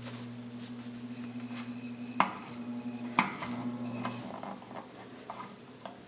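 Vintage McGraw Edison box fan's motor humming steadily, with scattered small clicks and two sharp clicks about two and three seconds in. The deepest part of the hum drops away about four seconds in.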